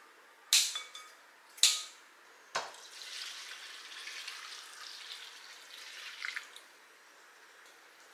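Kitchen scissors snip twice through dried shredded squid, followed by a knock about two and a half seconds in. Then warm water is poured from a steel bowl into a glass bowl over the squid for a few seconds, to soften it.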